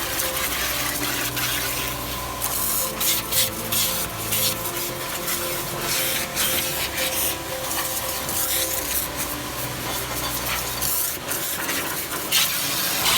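XCORT XQW01-1600 1600 W electric pressure washer spraying, its high-pressure water jet hissing and spattering, swelling and easing again and again.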